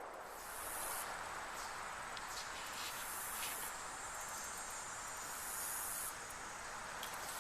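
Faint outdoor ambience between gunshots: a steady hiss with high-pitched insect buzzing that swells and fades several times, and a few faint clicks.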